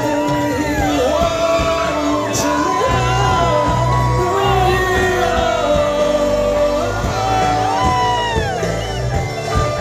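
Live rock band with electric guitars and drums playing through a stage PA while a male vocalist sings a slow, gliding melody.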